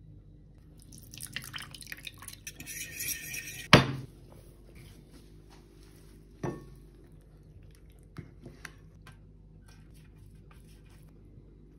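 Spoon stirring a spice-and-oil marinade in a ceramic bowl: a quick run of small clicks and scrapes, ending in a sharp knock about four seconds in. A second knock follows a few seconds later, then a few soft taps as dishes and a baking tray are handled.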